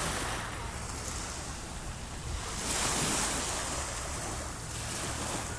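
Sea waves breaking and washing ashore, with one wave surging louder about three seconds in. A low wind rumble on the microphone runs underneath.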